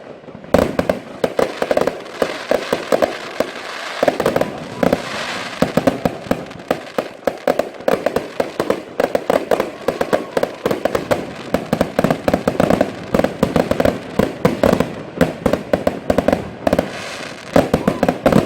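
Category F2 consumer fireworks going off in a dense, unbroken run of sharp shots and bangs, several a second.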